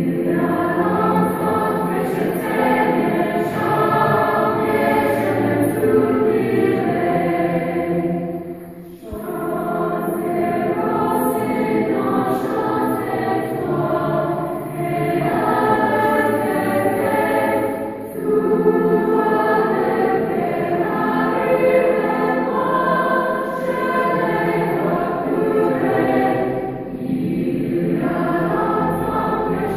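Children's chorus singing in a stone church, many voices in sustained harmony, with short breaks between phrases about nine seconds in and again near the end.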